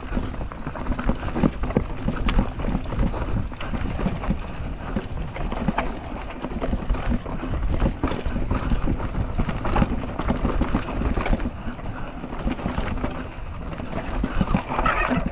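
Mountain bike ridden fast over a rough trail: continuous rattling and clattering of the bike and tyres over bumps, with many irregular knocks and a steady low rumble.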